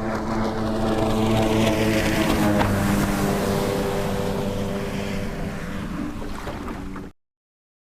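Jet ski engine running with a hiss of water spray, passing close: loudest about two seconds in, its pitch dropping slightly as it moves away. The sound cuts off suddenly about seven seconds in.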